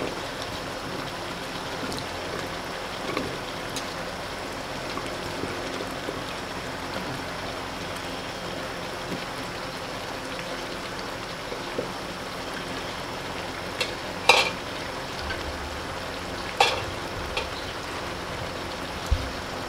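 Chicken curry sizzling steadily in a pot on a gas stove as chunks of raw potato are dropped into it, with a few louder sharp knocks in the second half.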